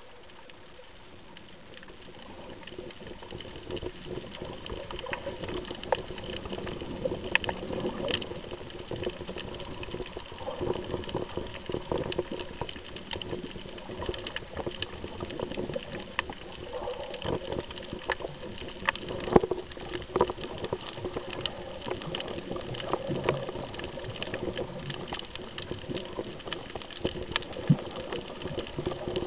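Underwater ambience picked up by a camera held under the sea on a shallow reef: a steady muffled wash with a low hum, dotted with many irregular small clicks and pops.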